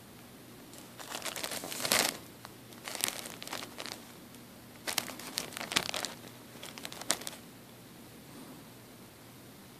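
Thin plastic soda bottle crinkling and crackling as a hand handles and turns it, in four bursts over the first seven seconds.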